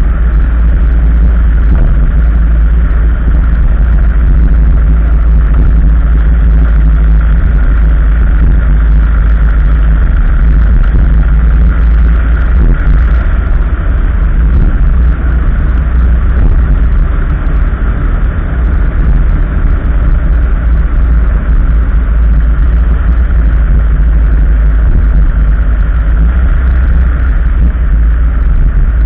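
A vehicle driving steadily on a paved road: a loud, unchanging low rumble of road and engine noise, with a steady drone higher up.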